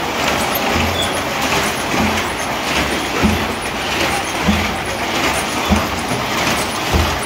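Motorized sedge-mat weaving loom running: a steady mechanical clatter with a heavy thump repeating about once every 1.2 seconds.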